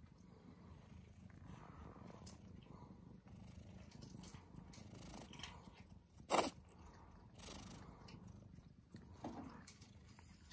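A grey kitten purring steadily while it is stroked on the head and neck. A brief sharp noise cuts in about six seconds in.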